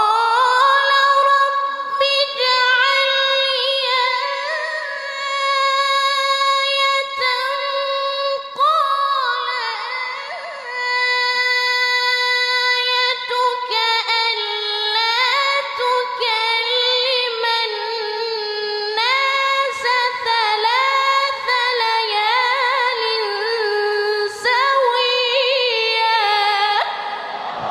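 A woman singing solo in a high voice, holding long notes with quick ornamental turns and wavering pitch.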